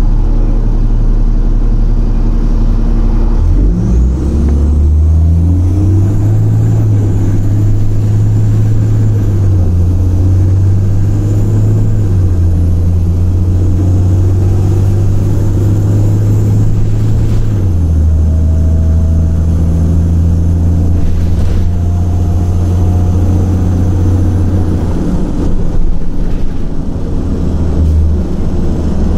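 Cummins ISL inline-six diesel in a 2006 Orion VII bus idling, then pulling away about four seconds in. The engine note climbs and then drops in several steps as the Allison automatic shifts up, with a high whine over the engine during the acceleration. Near the end the revs fall back low, then pick up again.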